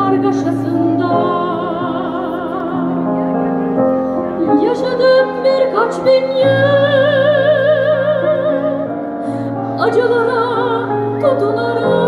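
A soprano singing in operatic style, holding long notes with a wide vibrato, over sustained keyboard chords that change every few seconds.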